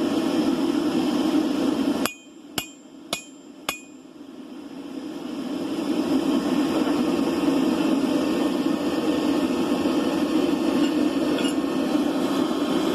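Four blacksmith's hammer blows on an anvil, about half a second apart, each ringing briefly. Before and after them a loud steady rushing noise, which cuts off suddenly just before the blows and builds back up after them.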